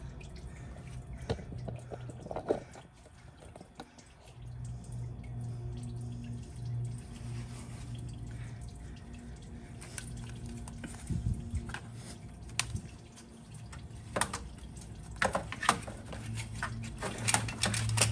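Engine oil dripping under the car: irregular sharp drips, coming more often near the end, over a low steady hum.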